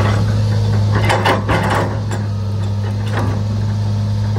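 Hitachi excavator tipping a bucketful of soil into a công nông truck's tipper bed: clods of earth clatter and thud into the bed for about a second, with one more knock about three seconds in, over the steady drone of a diesel engine running.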